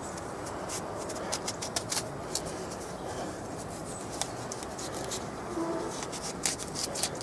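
Small pocket knife cutting and peeling the tough, leathery skin off a prickly pear cactus pad: an irregular string of crisp clicks and snicks over a steady background hiss.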